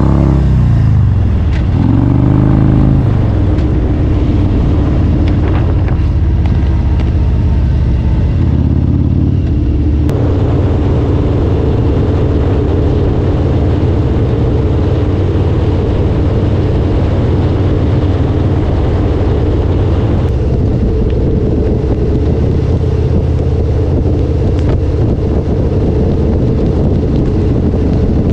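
Harley-Davidson Road King V-twin motorcycle engine running under way, revving up and dropping back twice in the first few seconds, then holding a steady pace.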